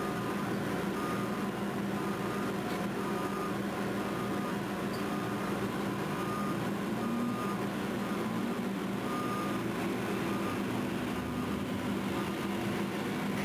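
Large mining rope shovel with a 35-cubic-yard dipper swinging a load of rock over a haul truck, its machinery giving a steady low drone. A high beeping alarm sounds on and off over it.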